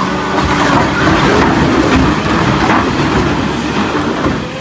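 Tire shredder cutting up a large tractor tire: loud steady machine running, with irregular crunching and tearing of rubber as the tire is pulled into the cutters.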